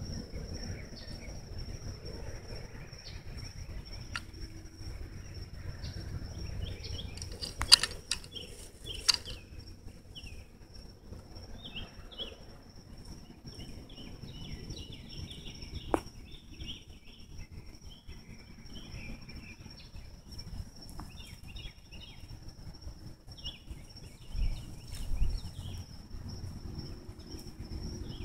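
Outdoor evening chirping: a steady high-pitched drone with scattered short chirps, broken by a few sharp clicks and a couple of low thumps near the end.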